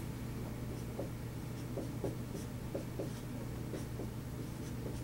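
Dry-erase marker writing on a whiteboard: a string of short squeaking strokes as figures are written out.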